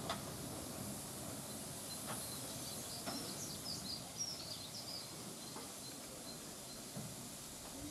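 Quiet outdoor background with small birds chirping for a second or two in the middle, and a few faint knocks.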